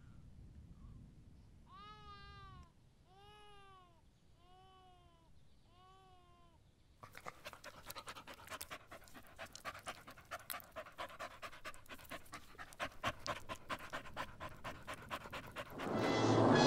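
A dog whines four times in short arching cries, then pants rapidly and steadily for several seconds. A louder sound, music, starts near the end.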